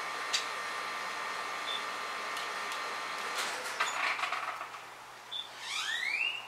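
A steady hum with several held tones stops about halfway, followed by a short patch of clicks. Short high bird chips come now and then, and a quick rising call sounds near the end.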